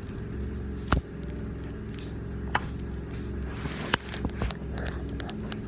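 A handful of sharp clicks and knocks, four or five, over a steady low hum.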